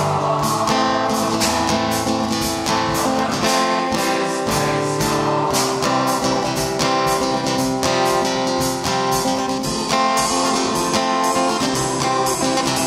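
Piano accompaniment for a boys' choir, playing a quick, driving pattern of repeated chords.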